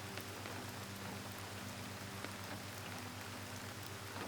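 Soft, steady rain with scattered individual drops ticking, over a faint low steady hum.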